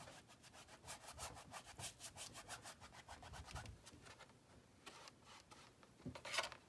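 A paintbrush scrubbing acrylic paint onto a stretched canvas in quick back-and-forth strokes, several a second, thinning out about four seconds in, with one louder stroke near the end.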